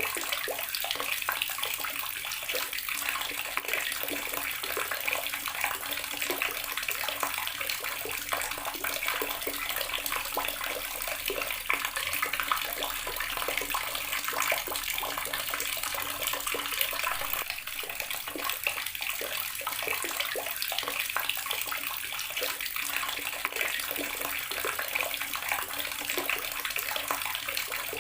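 Garden water tap running, its stream splashing steadily and evenly.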